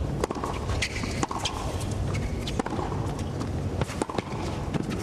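Tennis rally on a hard court: racket-on-ball strikes and sharp footwork sounds at irregular intervals, over a steady bed of crowd and stadium noise.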